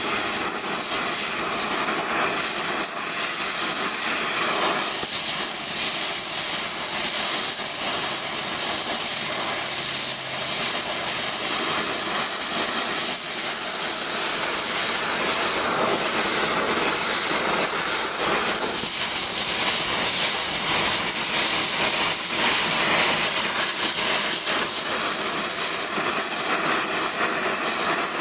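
Oxy-acetylene torch flame burning with a loud, steady hiss as it heats metal in an ingot mold.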